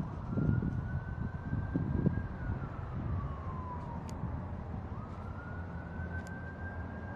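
Emergency-vehicle siren on a slow wail: its pitch rises at the start, holds, falls in the middle, then rises again about five seconds in, over a low steady rumble.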